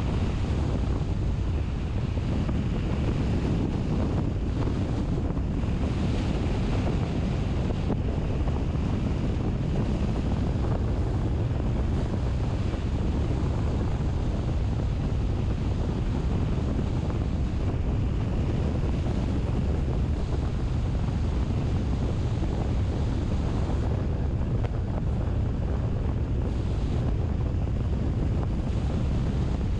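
Steady wind and road noise from a moving car: a constant low rumble with wind buffeting the microphone.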